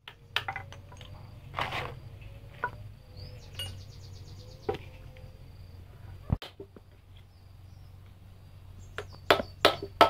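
A hammer striking a steel punch held against an engine's cast-iron cylinder head, giving sharp metallic knocks: scattered single blows, then a quick run of four strikes about a second before the end.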